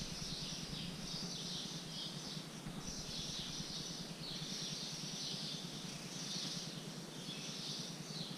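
High-pitched chorus of small animals chirping outdoors, coming in repeated phrases about a second long over a faint steady background.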